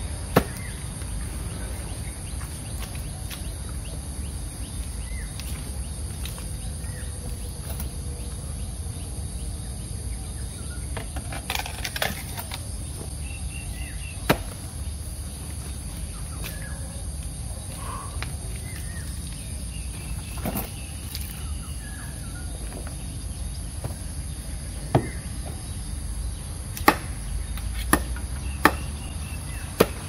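Long-handled hand digging tool working a muddy ditch, giving a scatter of sharp knocks at irregular intervals, several close together near the end, over a steady high drone of insects.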